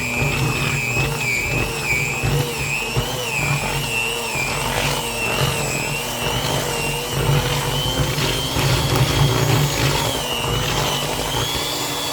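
Electric mixer running through a thick peanut-butter suet mixture, its motor pitch wavering up and down as the load on the beaters changes.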